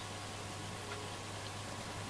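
Static hiss from a Roberts R200 transistor radio tuned between stations on the medium-wave band, over a steady low hum.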